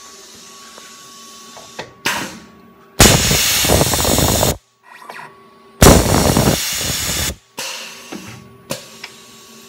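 Tormach 1100M's pneumatic power drawbar venting compressed air during an automatic tool change: two loud hisses, each about a second and a half long and about three seconds apart, with smaller whooshes around them and a faint steady machine hum underneath.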